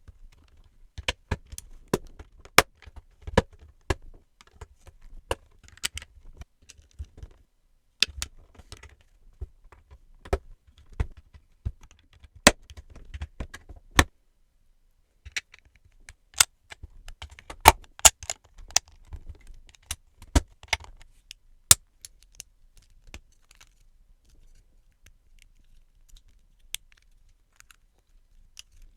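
Plastic LEGO bricks clicking and rattling as pieces are handled, sorted and snapped together, in irregular clusters of sharp clicks that thin out near the end.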